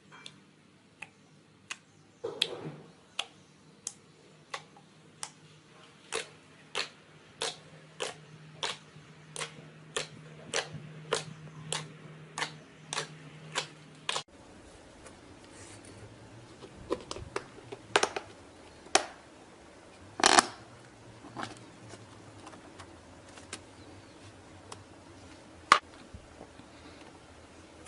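Slime being squeezed and poked, giving sharp popping clicks about two a second, then after a cut fewer, louder pops at irregular intervals.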